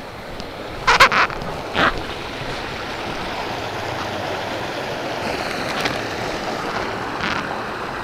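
Small mountain stream running steadily over rocks, an even rushing of water. Two short rustling noises come about one and two seconds in.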